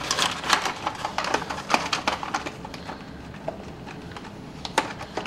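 Small cardboard model-train boxes being handled and lifted out of a larger cardboard storage box: a run of light clicks, taps and scrapes, busiest in the first couple of seconds, with a sharper click near the end.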